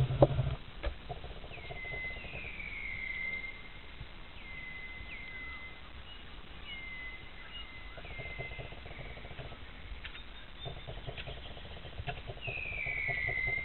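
A bird calling again and again with whistled, down-slurred notes that fall and then level off, some short and some drawn out. There is a sharp thump just after the start.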